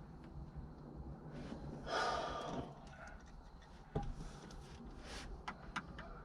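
A man's heavy exhale, like a sigh, about two seconds in. Then a sharp click and a few lighter clicks of plastic parts being handled.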